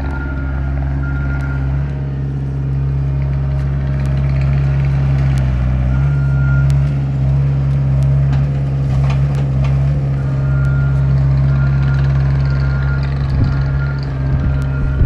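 Gehl skid steer's diesel engine running steadily under load, dipping briefly about halfway through, with its backup alarm beeping in evenly spaced beeps at the start, once in the middle and again through the last third as it reverses. A few sharp knocks sound near the middle.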